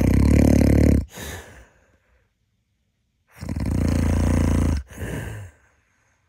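A man snoring in his sleep: two long, loud snores about three and a half seconds apart. Each is followed by a short, softer breath and then a few seconds of silence.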